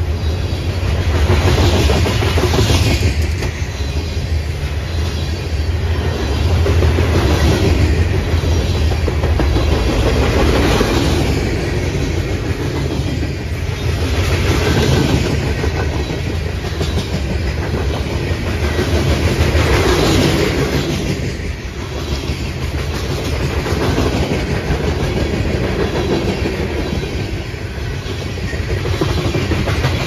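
Freight train cars rolling past close by: a steady rumble of steel wheels on rail with clickety-clack over the rail joints, swelling and fading every few seconds.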